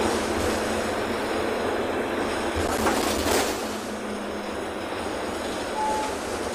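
Interior noise of a city bus on the move: a steady bed of engine and road noise, with a brief louder rush of noise about three seconds in and a short beep near the end.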